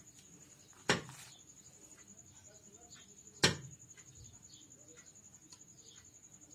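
Two sharp metallic clacks, about two and a half seconds apart, from a Maruti steering rack being handled and worked, with faint small clicks of metal parts in between.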